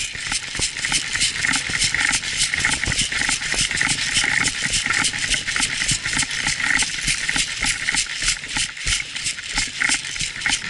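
Rapid, regular footsteps on dry ground, about four a second, with loose gear rattling in time with each step.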